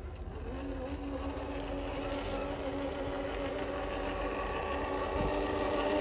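Radio-controlled scale crawler truck's electric motor and geared drivetrain whining as it drives. The whine comes in about half a second in, holds a steady pitch and grows a little louder.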